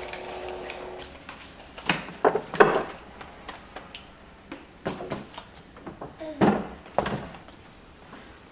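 A plastic ride-on toy car knocked about on a hardwood floor by toddlers: a handful of scattered sharp knocks and taps.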